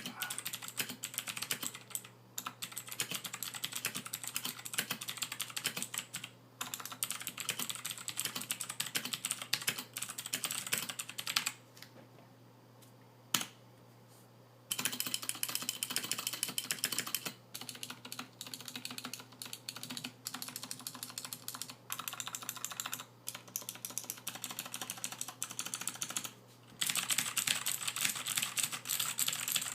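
Fast continuous typing on a stock Royal Kludge RK61 mechanical keyboard, with unlubricated stabilizers and no case dampening: a dense run of key clicks. The typing stops for about three seconds around the middle, with one lone keystroke in the pause, then resumes.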